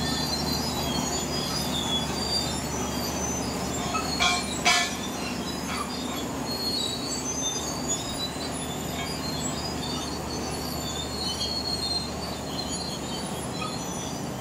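BEML D155A crawler dozer's Cummins KT1150 six-cylinder diesel running steadily under the high squeaks and clatter of its steel tracks, with two sharp metallic clanks about four seconds in. The sound grows slightly quieter as the dozer moves away.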